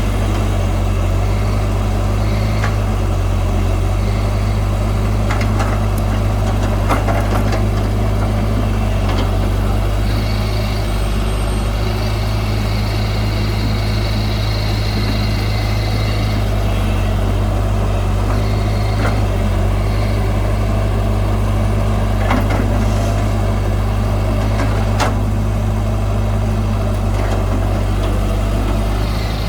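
Heavy diesel engine of earth-moving machinery running steadily at an even speed, with a few sharp knocks scattered through it.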